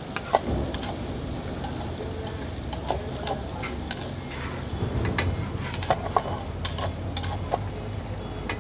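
Masala paste and spices sizzling in hot oil in a large aluminium kadhai: the base of a fish gravy frying. A metal ladle stirs and scrapes, with scattered sharp clinks against the pan.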